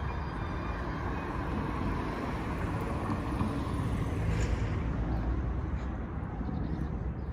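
City street traffic: a steady low rumble of vehicles, a little louder about four seconds in as one passes close.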